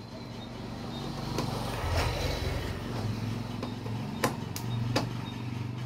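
Several sharp clicks in the second half as a screwdriver works the screws into a plastic wall clock's case, over a steady low hum.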